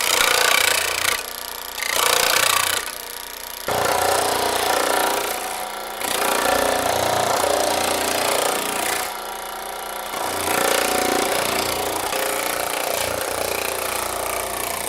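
Baileigh PH-19 power hammer rapidly hammering sheet metal with a thumbnail shrinking die. It runs in several spells, with brief letups between them.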